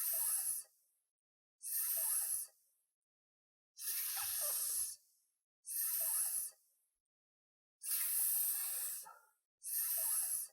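A person voicing the English /s/ sound as a drawn-out "sss" hiss, six times in a row, each about a second long with short silent pauses between, for repeat-after-me pronunciation practice.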